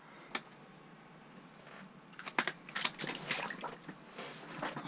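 A fish being let go into a slushy ice-fishing hole: a single sharp click, then a quick run of clicks and taps with wet splashing in the slush and water.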